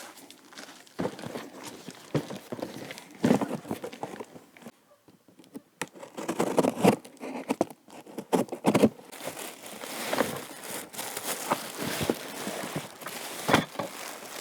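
Packaging being handled and pulled open: plastic and paper crinkling and tearing in irregular bursts, with a short lull about five seconds in.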